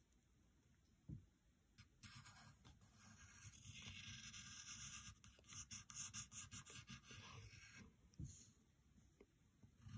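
Faint scratching of a pencil on paper, drawing a run of strokes that is busiest in the middle.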